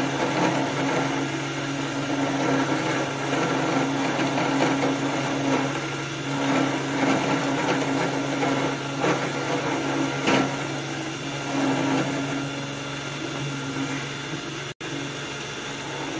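A 775 DC motor spindle running at 24 volts, belt-driving a 10 mm nACo-coated end mill that takes light cuts in a finned metal cylinder: a steady motor whine with the rasp of the cutter in the metal. The sound drops out for an instant near the end.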